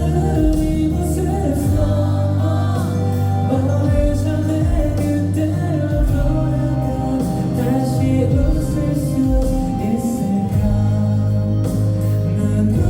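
A vocal group singing live over a pop backing track with a steady drum beat and deep bass.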